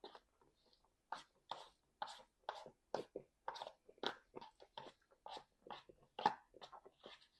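A person chewing a mouthful of food, audible smacks of the mouth, about two to three chews a second, starting about a second in.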